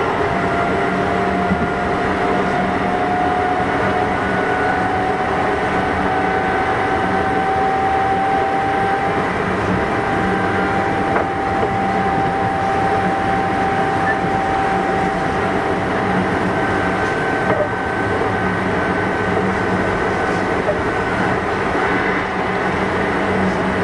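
Running sound of a Kintetsu 6200 series electric train under way: a steady rumble of wheels and running gear with a whine that rises slightly in pitch over the first ten seconds or so and then holds steady.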